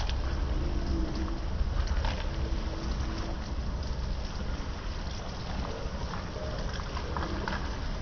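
Rain falling on wet concrete and walls: a steady hiss with scattered drip taps, over a low rumble.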